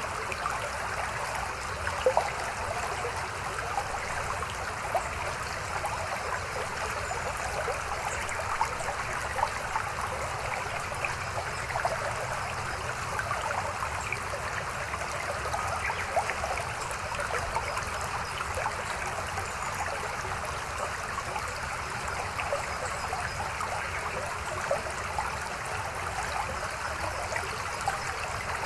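A small mountain stream babbling over rocks: a steady rush of water with constant small splashes and gurgles.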